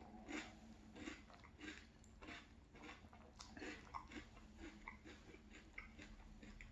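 Faint, close-up chewing of a mouthful of marshmallow cereal in milk: soft crunches at about two to three a second.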